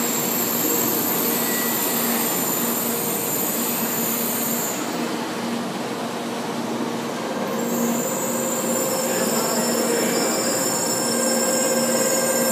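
700 Series Shinkansen bullet train rolling slowly past along the platform as it pulls in, a steady rolling rumble with thin, steady whining tones over it.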